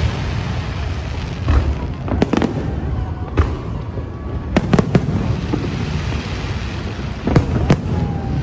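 Aerial fireworks shells bursting overhead: a series of sharp bangs roughly every second, several coming in quick pairs.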